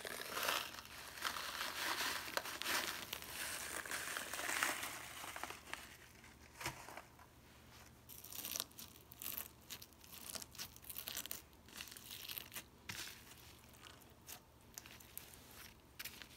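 Hands squeezing and poking a thick slime packed with small pebbles, making crunchy crackling and popping noises: a dense crackle for the first several seconds, then scattered clicks and crackles.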